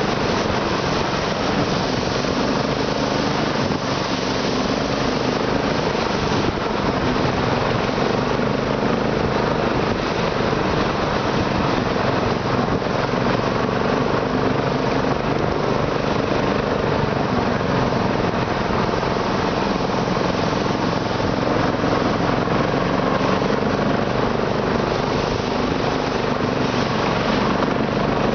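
Internal combustion engine running steadily at an even level; the engine is one the owner says has a knock in it.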